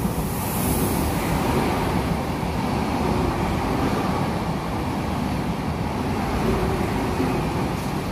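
Frecciarossa 1000 high-speed electric train running past close alongside the platform: a loud, steady rumble of wheels on rails with rushing air, and a brief hiss about half a second in.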